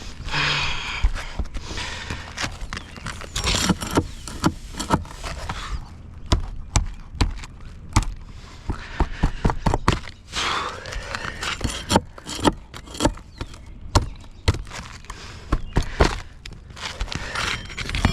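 Hand-tool work at a workbench: irregular sharp taps and knocks, with short bursts of scraping or rubbing near the start, about a third of the way in, a little past halfway and near the end.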